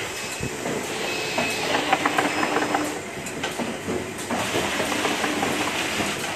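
Automatic case packing machine running: a steady mechanical hiss and conveyor rattle, with a quick run of clicks and knocks about two seconds in as its mechanism moves the cake boxes into cartons.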